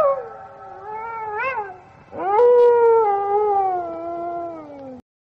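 Two long wolf howls, each sliding slowly down in pitch. The first trails off with a brief wavering rise about a second and a half in; the second begins after a short gap about two seconds in and falls steadily until it cuts off suddenly near the end.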